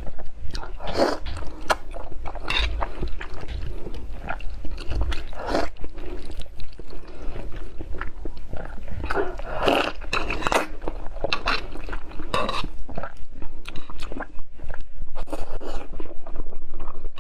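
Slurping and chewing of thick, spicy fire chicken noodles (Samyang Buldak) eaten with chopsticks: wet mouth sounds and smacks in short, irregular bursts.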